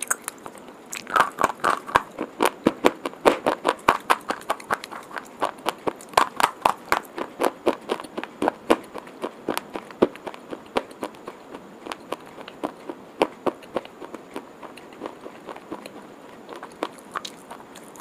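Person biting and chewing white chalk, a quick run of crisp crunches close to the microphone, thinning out to scattered crunches about halfway through.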